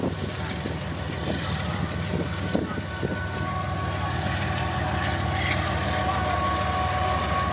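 Diesel freight locomotive and its train moving away along the track: a steady low engine drone, with a few faint wheel clicks on the rails.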